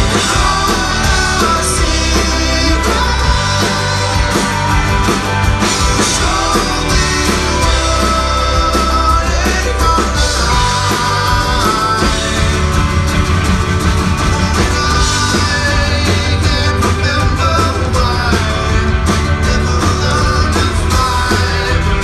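Rock band playing live: singing over electric and acoustic guitars, drums and keyboard.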